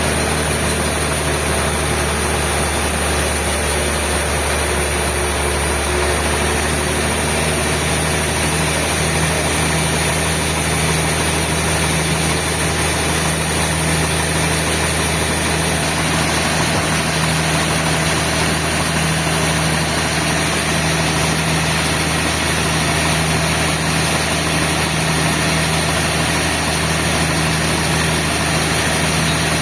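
Sawmill machinery running steadily with a constant low hum.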